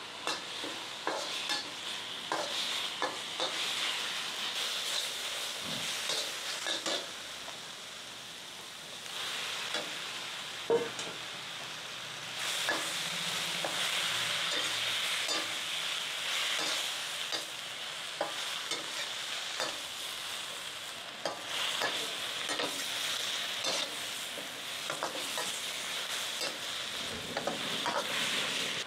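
Food stir-frying in a wok over a propane burner: a steady sizzle, with a metal spatula scraping and tapping against the wok again and again. The sizzle swells louder about twelve seconds in and again a little after twenty seconds, and one sharp clank stands out near eleven seconds.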